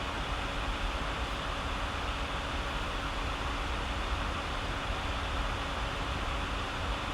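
Steady background hiss with a faint low hum: room tone with no distinct event.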